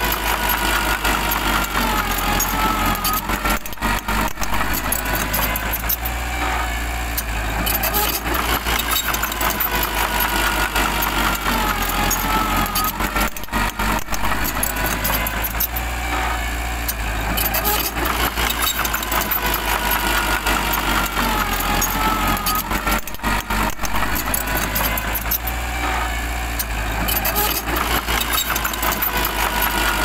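Mini crawler bulldozer's diesel engine running steadily as the dozer pushes dirt and rock, with a wavering higher whine that comes and goes several times.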